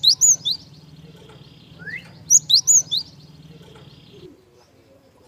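Gelatik batu (cinereous tit) song used as a lure call: twice, a short rising note followed by three or four quick, high, upward-flicking chirps, the phrases a little over two seconds apart. A faint steady buzz sits underneath and stops about four seconds in.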